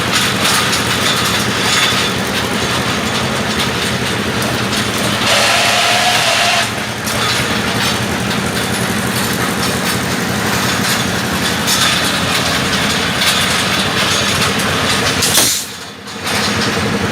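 Rebar bending machine running while straightening steel reinforcing bar: a steady mechanical noise that drops off briefly near the end.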